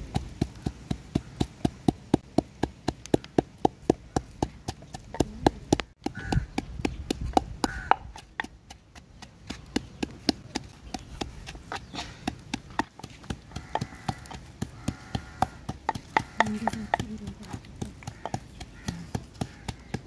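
Knife chopping food on a wooden board in quick, regular strokes, about three a second, with a couple of short pauses.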